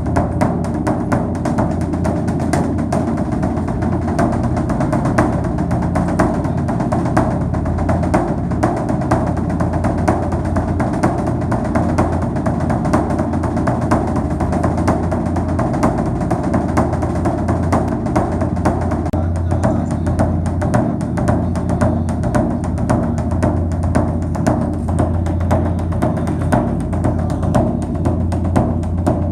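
Background music with a steady, quick drum and percussion beat over a sustained low tone.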